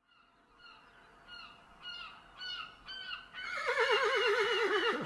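A bird calling in a series of short, falling cries about twice a second, then from about three seconds in a horse whinnying, its pitch quavering and dropping.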